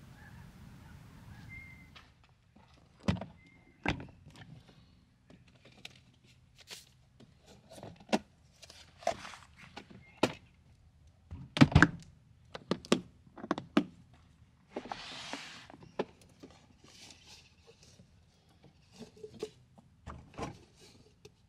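Gear being handled and set down: a run of separate knocks, clunks and clicks, loudest in a quick cluster about twelve seconds in, with a brief rush of noise a few seconds later.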